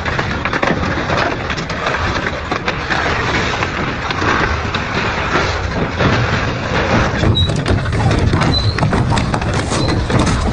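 Double-shaft industrial shredder running under load, its blades grinding material with a dense, continuous stream of cracks, snaps and crunches over a low rumble. The rumble gets heavier about seven seconds in.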